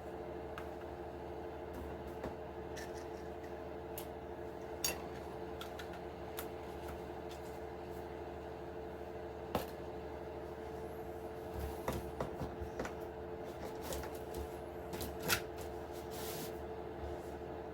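Light clicks and taps of an RC truck's plastic body parts being handled. They are scattered at first and come more often in the second half, over a steady background hum.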